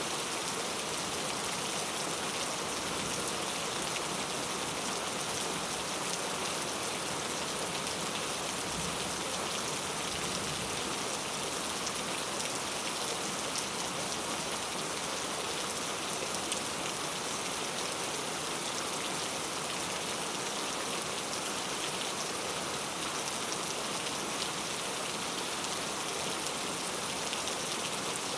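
Steady rain falling, with fine drop patter on a surface.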